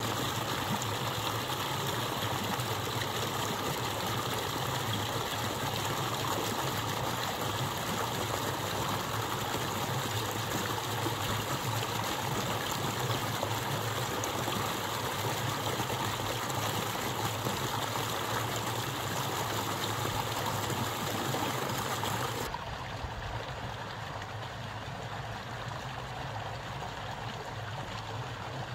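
Flowing water rushing steadily, as in a stream or channel. About twenty-two seconds in, the higher hiss drops out suddenly and it goes on quieter.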